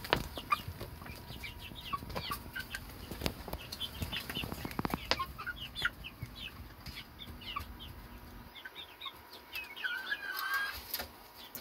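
Young chickens, about 10 to 11 weeks old, peeping and clucking in short calls, with scattered sharp taps among them. Near the end one bird gives a longer, wavering call.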